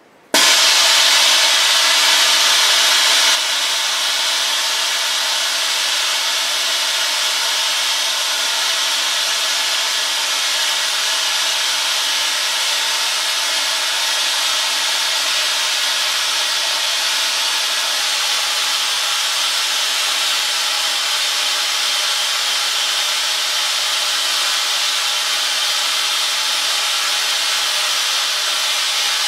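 Steady, loud rushing hiss of air from the blower system that inflates and deflates the latex forms, starting suddenly and a little louder for the first three seconds before settling to an even level.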